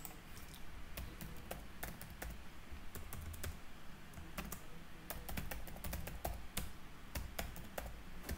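Typing on a computer keyboard: a run of quick, irregular keystroke clicks.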